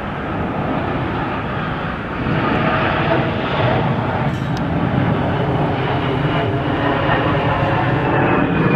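Embraer 175 regional jet touching down and rolling out on the runway, its twin turbofan engines giving a steady jet-engine noise that grows louder about two seconds in.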